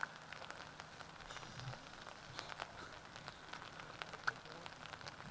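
Light rain ticking on an umbrella held over the recorder: scattered, irregular sharp drops over a soft, faint hiss.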